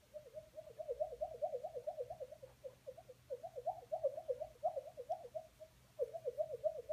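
A baby's new repetitive vocal noise: a rapid warbling coo made of short rising-and-falling pulses, about five a second. It breaks off briefly near the end and then starts again.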